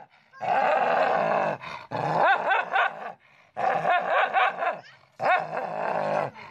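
A dog growling and snarling aggressively at its own reflection in a mirror. It comes in four bouts of about a second each with short breaks between, and some notes rise in pitch like barks.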